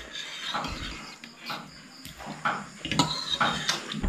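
People eating instant ramen from one ceramic bowl: forks and spoons clink and scrape against the bowl as noodles are lifted out of the broth, along with eating and slurping sounds. It comes as a string of short, separate sounds.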